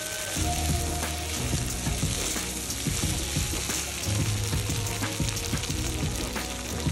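Spice-coated chicken pieces sizzling in a nonstick pan as they are stirred and turned with a silicone spatula, dry-roasting for chicken perattu.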